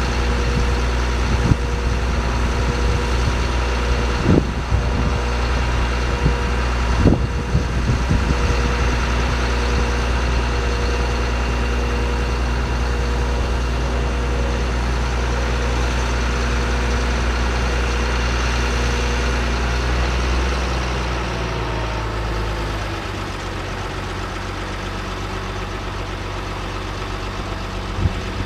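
2006 GMC C7500 truck's engine running steadily at a raised speed, with a few sharp knocks in the first eight seconds. About 21 to 23 seconds in, the engine drops to a lower, quieter idle.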